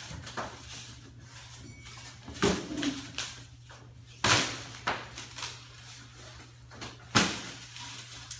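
A string of sharp thumps and knocks, three loud ones about two and a half, four and seven seconds in with smaller ones between, as white foam packing pieces are struck. Under them runs a steady low hum.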